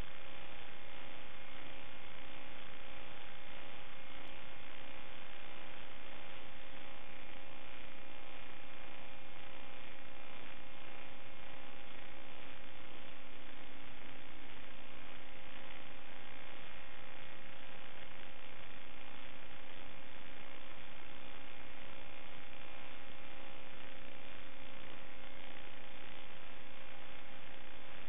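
Steady electronic hiss and hum with a few fixed tones, unchanging throughout. It does not follow the throttle: this is the empty audio channel of an analog FPV video receiver's DVR recording, not the quadcopter's motors.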